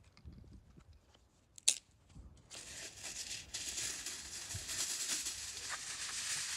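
Aluminium foil being pulled off its roll and crinkling: a steady high rustle that starts about two and a half seconds in, after one sharp click.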